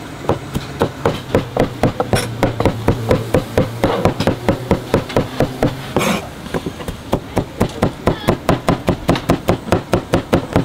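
Steel meat cleaver chopping grilled steak (carne asada), then chorizo near the end, on a cutting board: rapid, even chops about five a second.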